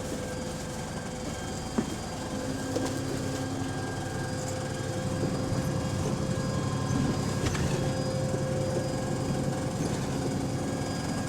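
Double-decker bus running, heard from inside, its Voith automatic gearbox giving a steady whine over the engine and road noise. About two seconds in, just after a single sharp knock, a deeper drive note comes in and the sound grows louder as the bus gathers speed.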